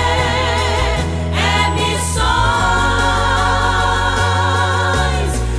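Gospel worship song with sung voices holding long notes with vibrato over a steady bass accompaniment; the voice breaks off briefly about a second in, then comes back in on a new held phrase.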